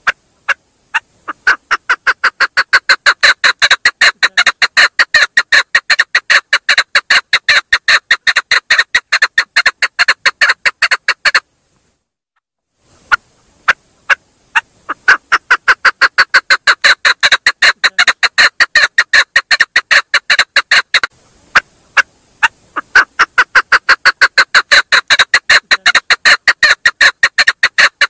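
Female chukar partridge calling: a long series of clucking notes that begins with a few spaced notes and quickens into a fast, steady run. The run breaks off about a third of the way through and again about three quarters through, each time starting slowly and building again.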